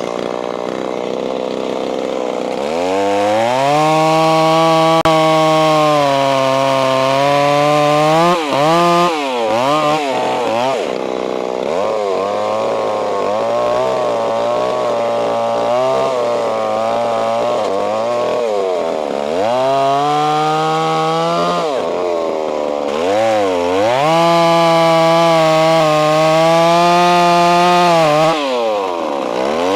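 Ported Stihl 026 two-stroke chainsaw with a 28-inch bar cutting into a big white oak log at high revs. Its engine note dips and climbs back several times as it loads up in the cut and frees again.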